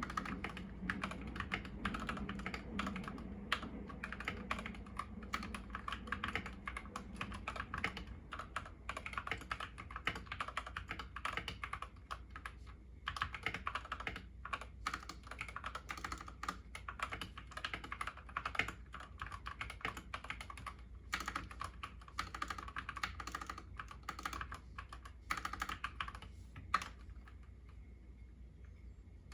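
Rapid, continuous typing on a YUNZII KC68 mechanical keyboard with lubed Gateron Yellow linear switches and XDA-profile keycaps. The typing pauses briefly near the middle and stops a couple of seconds before the end.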